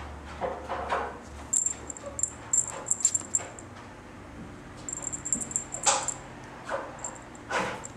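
Maine Coon kitten playing with a dangled wand toy, with small animal sounds and runs of quick, light, high ticking in bursts. The sharpest sound comes about six seconds in.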